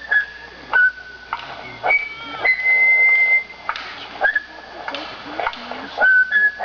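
A person whistling a slow tune of held notes that step up and down in pitch, one long note about three seconds in, with sharp clicks at the start of several notes.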